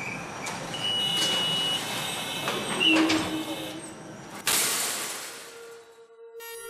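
Wire-mesh security cage gate being unlocked and handled: a short high beep about a second in, metal rattling, and a sudden loud rush of noise past the middle that fades over about a second. Background music comes in near the end.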